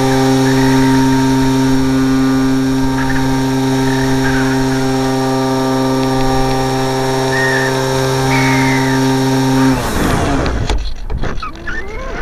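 Electric motor and propeller of a Parkzone Radian RC motor glider running at a steady pitch, heard from the camera on board. The motor cuts off suddenly about ten seconds in, leaving uneven wind rush over the airframe as it glides.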